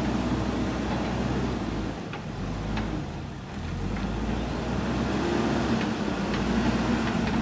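Diesel engine of a JCB 3DX backhoe loader running under load with a steady low hum. It eases off about two seconds in and builds back up about a second and a half later.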